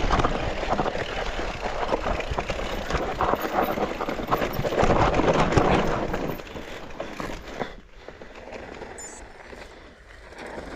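Mountain bike riding down a dirt trail: tyres rolling and crunching over the ground with the frame and parts rattling, plus wind noise. It eases off and gets quieter about six seconds in.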